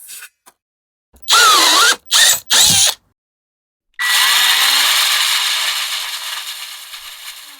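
Electric power drill run in three short trigger bursts with its motor pitch wavering up and down, then one longer run that fades away.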